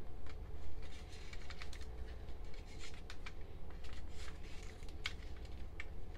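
Hands handling an open clear plastic CD jewel case and its paper inserts: a scatter of light, irregular clicks and taps of plastic with paper scraping.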